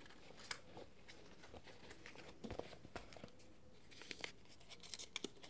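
Faint, scattered rustling and crinkling of a small folded paper slip being drawn from a fabric pouch and unfolded by hand.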